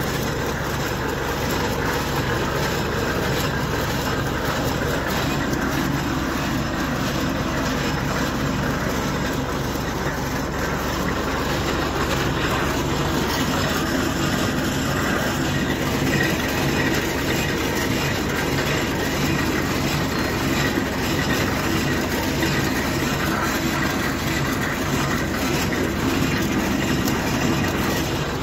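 Tractor engine running steadily under load, towing a sugarcane cutter planter, with the planter's steel frame and furrow openers rattling as they work through the soil.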